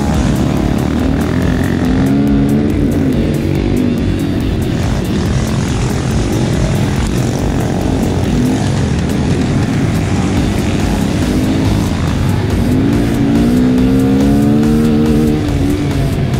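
Honda Grom's 125cc single-cylinder engine running on a muddy dirt track, revving up and easing off twice as the rider works the throttle through the ruts, with wind noise over the microphone.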